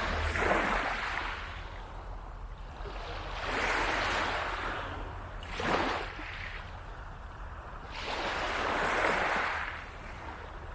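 Small waves breaking and washing up the beach in four surges a few seconds apart, one sharper splash about six seconds in.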